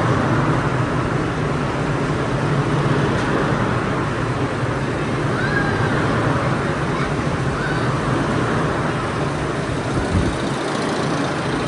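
Steady hum and rumble inside a 1930s R1/R9 subway car standing at a platform, with faint voices in the background.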